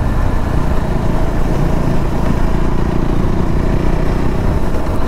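KTM Duke 390's single-cylinder engine running steadily as the motorcycle cruises at about 50 km/h, with wind rushing over the microphone.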